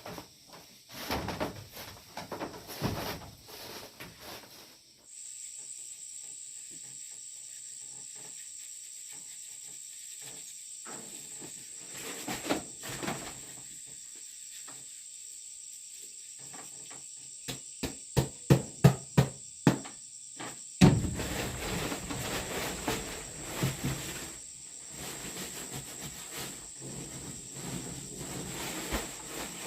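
Steady high-pitched insect trill, typical of crickets, coming in about five seconds in and continuing. Scattered knocks and handling noise sound over it, with a quick run of about eight sharp thuds a little past the middle.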